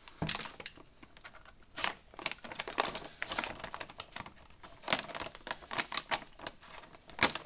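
Metallized anti-static bag crinkling and crackling as it is picked at and slit open with a utility knife: irregular sharp clicks and rustles.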